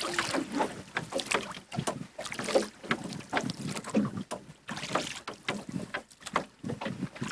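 Rowboat being rowed: oars dipping and splashing, with irregular clunks and knocks from the oars and boat, and wind buffeting the microphone.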